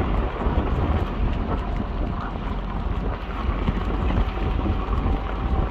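Toyota being driven slowly over rough forest ground: steady engine and tyre rumble with wind on the microphone.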